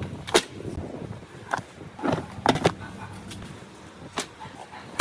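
Billiard balls rolling down a wooden track with a low rumble, clacking sharply against each other and the wood about half a dozen times.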